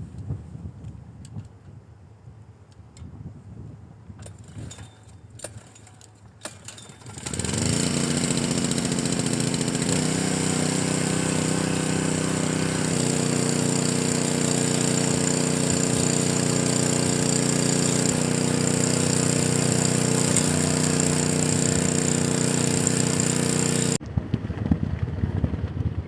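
A few quiet knocks and rumbles, then a motor starts with a short rising whine about seven seconds in. It runs with a loud, steady hum and cuts off abruptly shortly before the end.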